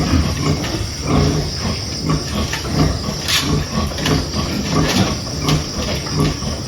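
Sow grunting in a steady low rhythm, about two grunts a second, the grunting of a sow nursing her newborn piglets.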